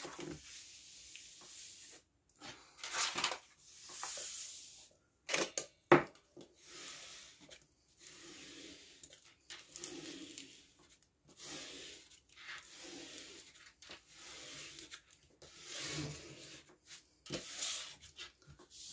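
Paper-covered diamond painting canvas rustling and crinkling in repeated bursts as its protective release paper is lifted, laid back down and rubbed flat, with one sharp click about six seconds in.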